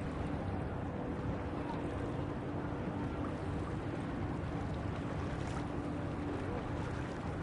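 Steady rush of wind and water aboard a felucca sailboat under way, with a faint steady hum underneath.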